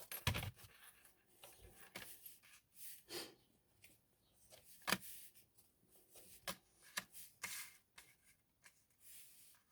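Tarot cards being handled and shuffled: faint, scattered taps, flicks and soft rustles of cards.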